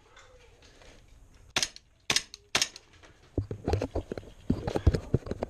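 Three single airsoft gun shots about half a second apart, each a sharp crack. From a little past halfway they give way to close, irregular knocking and rustling right at the microphone.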